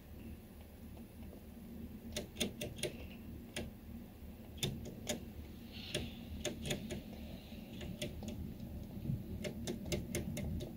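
Golden hamster licking the metal spout of a cage water bottle, making sharp ticking clicks. They come irregularly, in quick runs of several, busiest about two seconds in and again near the end.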